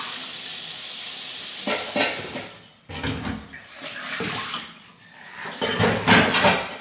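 Kitchen tap running steadily, then shut off about two and a half seconds in, followed by dishes clattering as they are handled.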